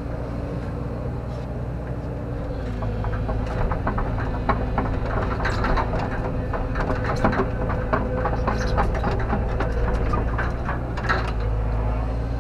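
JCB JS130 tracked excavator's diesel engine running steadily, with a run of metallic clanks and knocks from about three seconds in until near the end as the machine works.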